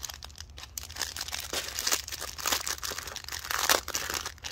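Plastic bags crinkling and rustling as a bundle of small zip-lock baggies of diamond painting drills is handled, in dense, irregular crackles.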